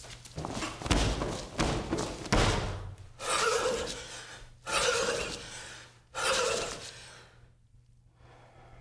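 A few heavy thumps in the first two and a half seconds, then three loud, breathy exhalations about a second and a half apart, each fading away.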